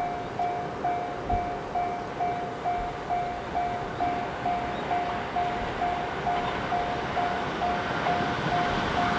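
Trackside railway warning bell sounding a single electronic tone about twice a second, signalling an approaching train. Under it, the running noise of a JR West 681/683-series Thunderbird limited express electric train grows steadily as it comes closer.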